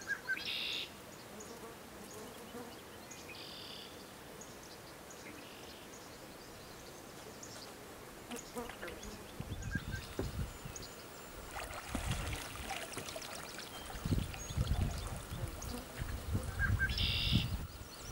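Cow moose feeding in shallow water with her head under: water sloshing, trickling and splashing around her, growing louder about halfway through as she moves and lifts her head with water pouring off it.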